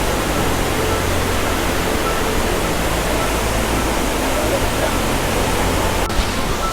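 Waterfall pouring, a steady loud rush of falling water heard close to the foot of the falls.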